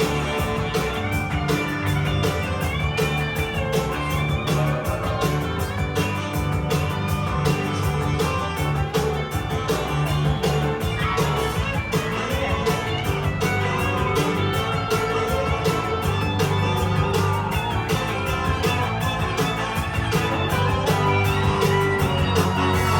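Rock and roll music: an instrumental break led by guitar over a steady drum beat and bass.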